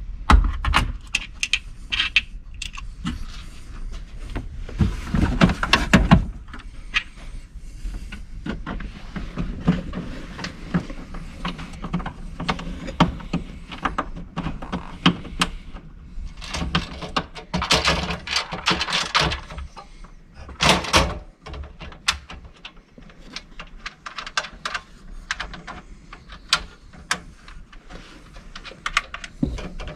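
Handling noise from work on a hybrid car's IMA battery pack: irregular clicks, taps and knocks as hands and tools move metal covers, bolts and plastic connectors. The knocks come in louder flurries about five seconds in, again around eighteen seconds, and once more just after twenty seconds.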